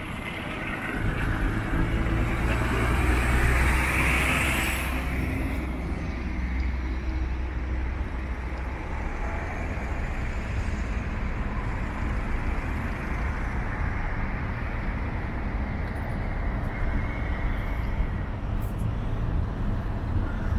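Road traffic with a steady low engine hum. A vehicle passes close by a few seconds in, swelling and then fading.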